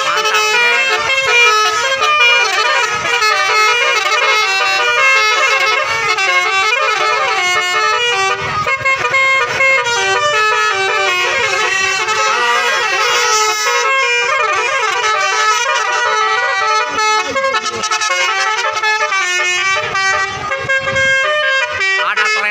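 Indonesian bus 'telolet basuri' musical air horn playing a fast melody of stepped notes without a break, loud and ringing.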